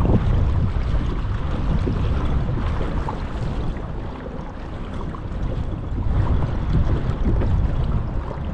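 Wind buffeting the microphone in a heavy low rumble, with water rushing along the hull of a pedal kayak under way into the wind.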